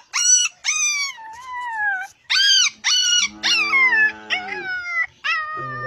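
A puppy crying: a rapid string of high-pitched yelps and whines, each rising then dropping in pitch, with one longer whine sliding down about a second in.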